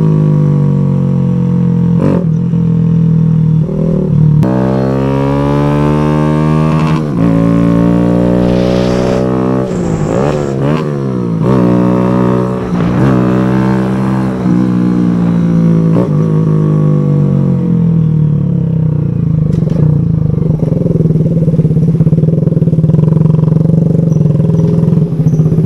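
Kawasaki Z125 Pro's single-cylinder engine through its aftermarket exhaust, heard from the rider's seat while riding. Its pitch rises and drops back again and again as it pulls and shifts up, then settles to a steadier, lower running over the last several seconds as the bike rolls slowly.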